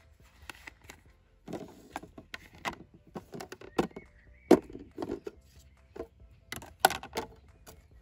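Plastic food containers and their lids being handled and set down on a table: an irregular series of clicks and knocks with light rustling between them, the sharpest about halfway through and again near the end.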